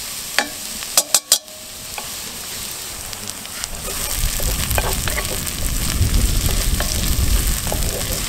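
Onions, red chili and sliced cabanossi sizzling in hot oil in a cast-iron Dutch oven, stirred with a wooden spatula that knocks against the pot a few times about a second in. From about halfway a low rumble rises under the sizzle and becomes the loudest sound.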